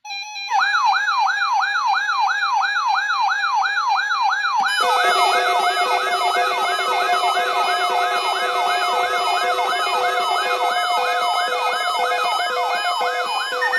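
Radio Shack 12-519 weather radio's alert alarm going off for a NOAA Weather Radio required weekly test: an electronic siren sweeping upward in pitch about two and a half times a second. Steady tones join the siren about five seconds in.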